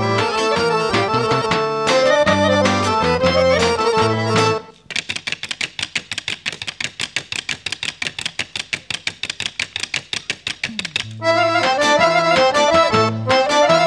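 Accordion-led Bulgarian folk dance tune that breaks off about five seconds in. For about six seconds the dancers' short wooden sticks tap out a fast, even rhythm of about six or seven clicks a second, then the accordion tune comes back in.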